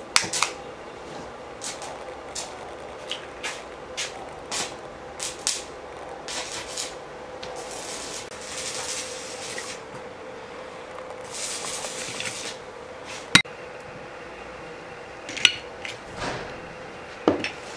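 Kitchen handling sounds: scattered light taps and clicks of utensils and eggshells against dishes, with two short rustling hisses about eight and eleven seconds in and a sharp knock about thirteen seconds in.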